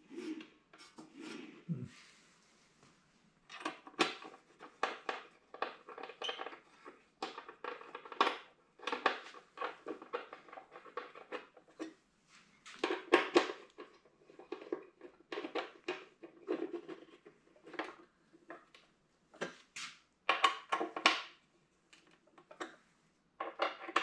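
Irregular metal clinks and knocks of saw parts and tools being handled and fitted while assembling an iQ MS362 masonry saw, with a short pause a couple of seconds in.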